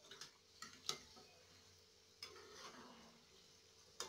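Samosas deep-frying in hot oil in a metal kadai: a faint sizzle, with a few light clinks and knocks of a utensil against the pan as they are stirred, the last one near the end being the loudest.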